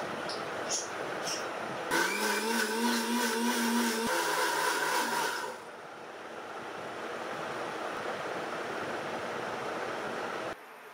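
Electric kitchen mixer grinder running, grinding soaked green gram (moong dal) and rice into dosa batter. The motor starts about two seconds in with a short rising whine and runs loud, then goes on quieter and smoother from about halfway, and stops abruptly near the end.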